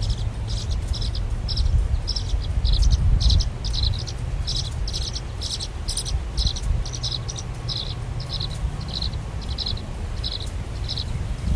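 An insect chirping steadily in a high-pitched, even rhythm of about two chirps a second, over a low rumble.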